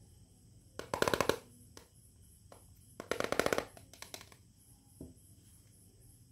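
Small plastic toy camera being handled, giving two short bursts of rapid plastic clicking, a rattle like a ratchet, followed by a few light single taps of plastic.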